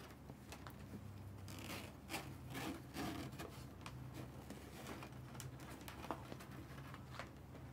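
Strands of hard-laid cord being handled and spread out by hand: soft, irregular rustling and rubbing with a few light clicks.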